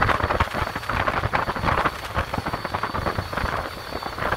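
Water rushing and splashing along the hull of a small boat underway, a dense uneven crackling hiss over a low rumble, with wind buffeting the microphone. A faint steady high whine runs underneath.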